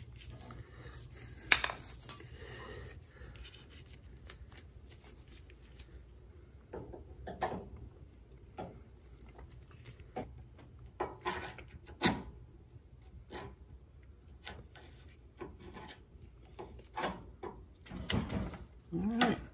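Scattered light metallic clicks, taps and scrapes from a screwdriver and hand tools working a part into place at the top of a John Deere L130 lawn tractor's front steering spindle, with a few sharper knocks.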